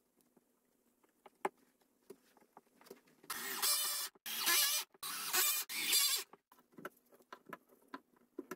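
Metabo cordless drill/driver driving screws into plywood, running in four short bursts of under a second each, with light taps and knocks of handling before and after.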